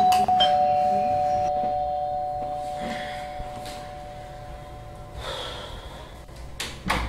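Electric doorbell chime rung once: a two-note ding-dong, the lower second note following about half a second after the first, both ringing on and slowly fading over about five seconds. A few faint clicks follow near the end.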